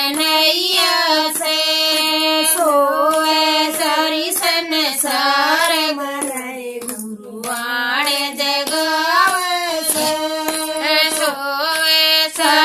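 Women singing a devotional bhajan together, with long held, wavering notes and steady hand claps in time; the singing breaks briefly about seven seconds in.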